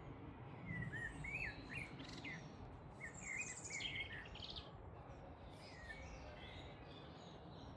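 Birds chirping: short, wavering, repeated call phrases in two clusters during the first half, then fainter calls, over steady background noise.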